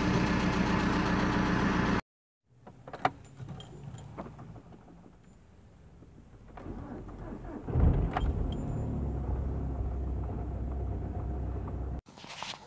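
A VW Golf 4's 1.9 TDI diesel idles steadily, then cuts off abruptly. After a short silence, keys jangle and click in the ignition of a Skoda Octavia II, and its 1.9 TDI diesel cranks and fires about eight seconds in, settling into a steady idle.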